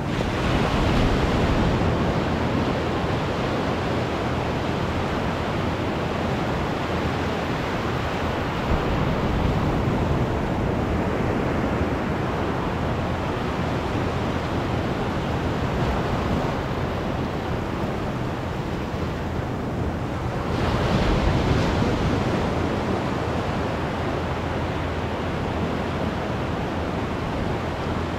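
Ocean surf breaking and washing up a sandy beach: a steady wash of water, swelling louder as waves break, most strongly about a second in and again about twenty-one seconds in.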